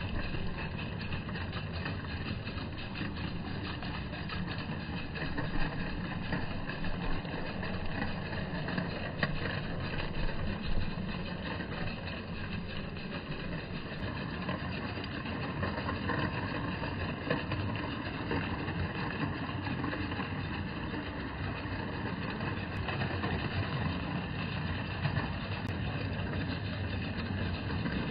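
Live-steam Bassett-Lowke Enterprise O gauge model locomotive and its carriages running along the garden railway track: a steady, deep rumbling clatter of wheels on rails and engine, slowed down by the slow-motion recording.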